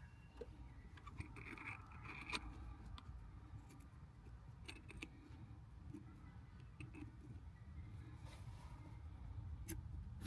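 Faint scattered clicks and a short scrape from small tools and shifter parts being handled, over a low steady rumble.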